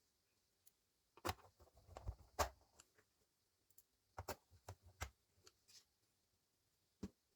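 Scattered light clicks and taps of small screws and a screwdriver being handled against a laptop's plastic case, in two clusters about a second in and about four seconds in, with one more click near the end.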